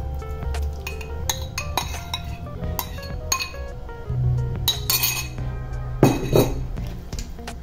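A small bowl tapping and clinking against the rim of a stainless steel mixing bowl as the dressing is tipped and scraped out, with a louder knock about six seconds in. Background music with a stepping melody runs underneath.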